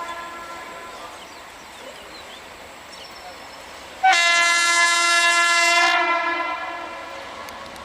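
WAP7 electric locomotive's horn sounding one loud blast of about two seconds, starting about four seconds in and fading out, over the steady running noise of the passing train. The tail of an earlier blast dies away at the very start.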